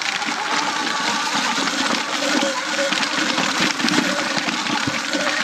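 Sur Ron X electric dirt bike on the move: the whine of its electric motor and chain drive wavers up and down in pitch with speed over a steady rushing noise.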